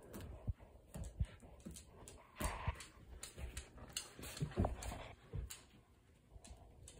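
Dog's claws clicking and tapping on a hardwood floor as the dog moves about, with scattered knocks and a few louder scuffs and thumps.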